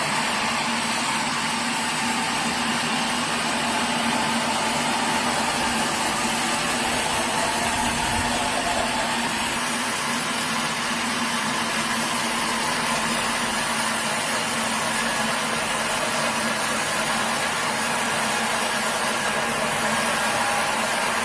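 Sawmill machinery running steadily: a constant mechanical hum and noise with no pauses or changes.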